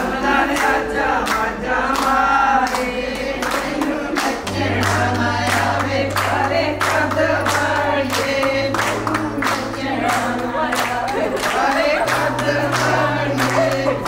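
A group of voices singing together over held low drone notes that step to a new pitch every few seconds, with steady percussion strikes keeping the beat.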